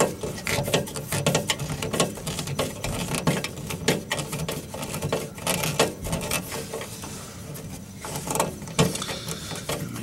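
Rapid, irregular metallic clicking and rattling of a hand tool working on screws at a furnace igniter mount.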